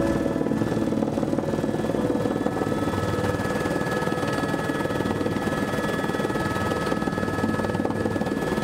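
Helicopter in flight heard from inside the cabin: a steady, dense engine and rotor noise with a thin, high, steady whine over it.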